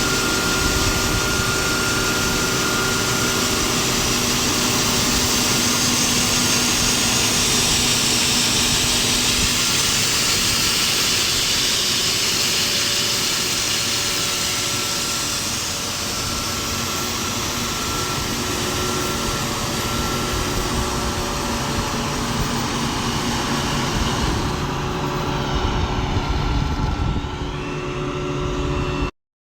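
A machine running steadily, a motor or engine noise with a few constant whining tones over a rushing hiss. It cuts off abruptly near the end.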